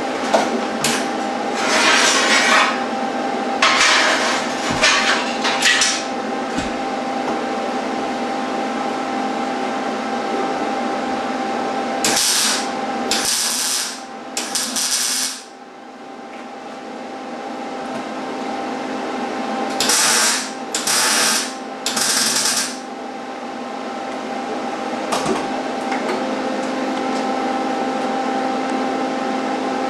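Arc welding on steel tubing: short bursts of welding noise, three in the first six seconds, three more about twelve seconds in and three more about twenty seconds in, each a second or less long, laying short beads. A steady hum runs underneath.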